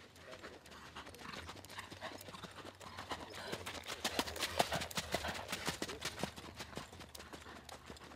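Hoofbeats of a ridden PRE (Andalusian) stallion moving at speed on a sand arena, a quick run of knocks that grows loudest about halfway through as the horse passes close, then fades.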